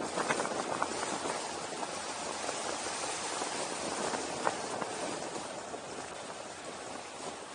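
Wind rushing over the camera's microphone during a descent: a steady, even rushing noise with a few faint ticks.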